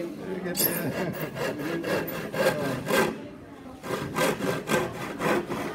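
Narrow hand saw cutting through a plywood panel in steady back-and-forth strokes, about two a second, with a brief pause just after three seconds in.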